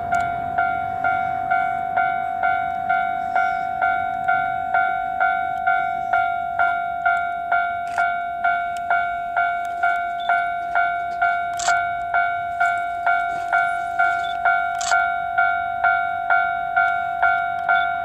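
Japanese railway level-crossing warning bell ringing, one electronic ding struck over and over at about two a second. It signals that a train is approaching the crossing.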